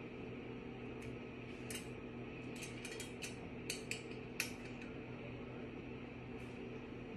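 Light metallic clicks and clinks, about a dozen in quick succession in the first half, from hand-assembling the metal top frame of a wheeled canvas laundry hamper, over a steady low hum.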